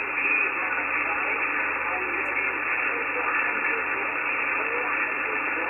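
Amateur HF transceiver receiving single-sideband on the 17 m band: steady band-noise hiss, cut off sharply at the top by the receiver's narrow filter, with faint wavering traces of weak distant voices beneath it.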